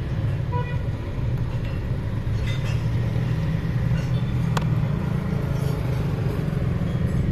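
Steady low hum of a car engine idling, heard from inside the car, with a single sharp click about four and a half seconds in.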